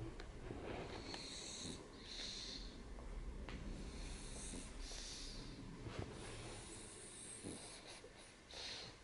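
Pug breathing faintly as it dozes with its head on a belly, a hissy breath every second to three seconds.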